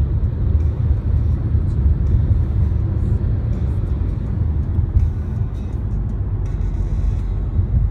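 Steady low rumble of road and traffic noise from a vehicle on the move.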